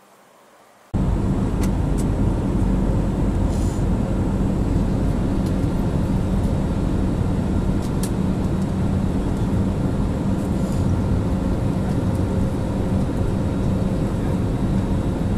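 Steady cabin noise of a jet airliner in cruise flight, heard from a window seat over the wing: a constant rush of engine and airflow noise with a low steady hum. It starts suddenly about a second in, after a quiet moment.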